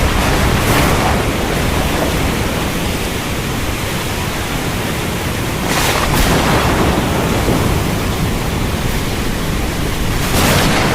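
Heavy rain falling steadily as a dense hiss, swelling louder in washes near the start, about six seconds in and near the end.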